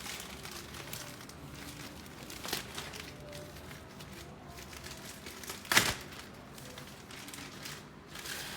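Plastic wrapping on air-purifier parts crinkling as it is handled and pulled off, with scattered rustles and one sharp snap or knock about six seconds in, the loudest sound.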